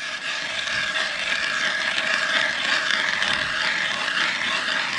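Powered ice auger boring a hole through lake ice for a tip-up, its motor giving a steady whine over the hiss of the cutting.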